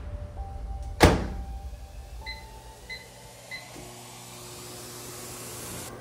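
Microwave oven door shut with a sharp clunk, then three short keypad beeps, and the oven starts running with a steady low hum.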